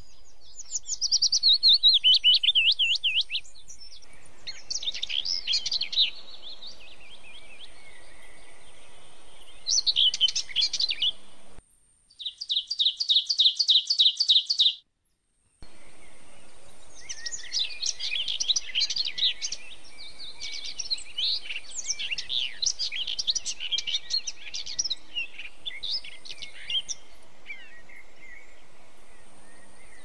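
Small songbird singing in bouts of bright, fast chirps and trills. One stretch is a rapid run of repeated notes, several a second, that cuts off abruptly. A steady faint hiss lies underneath.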